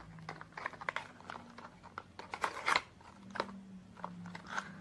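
A small cardboard box for a folding phone bracket being opened by hand and its contents pulled out: irregular rustling and crinkling with small clicks, loudest a little before three seconds in.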